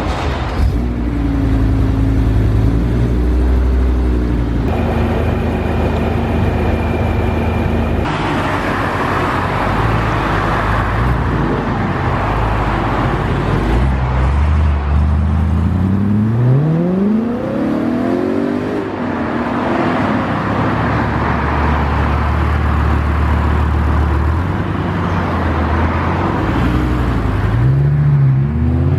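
Performance car engines running near the pavement as cars move off. One revs up in a sharp rising sweep about halfway through, and another starts to rev near the end, with steadier low engine notes between.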